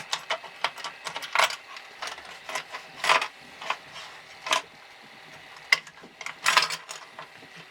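Hold-down clamps being taken off the bed of a CNC 3018 Pro router: irregular small clicks and knocks of the clamps and their screws being loosened and lifted away.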